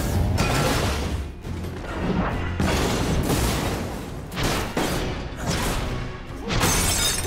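Action film score mixed with fight sound effects: several heavy impacts and crashes.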